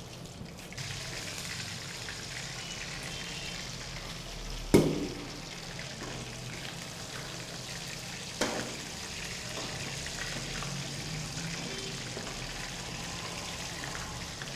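Chicken lollipops deep-frying in hot oil: a steady sizzle of bubbling oil as the pieces cook through. Two sharp knocks break in, about five seconds in and three and a half seconds later, the first the louder.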